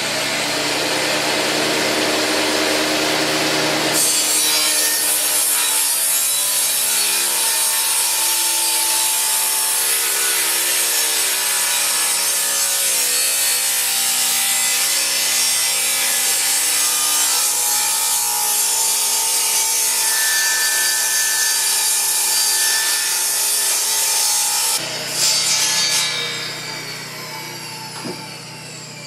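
Table saw ripping a flat along a length of round wooden stock. The motor spins for about four seconds, then the blade cuts through the wood for about twenty seconds. Near the end the cut finishes and the saw winds down.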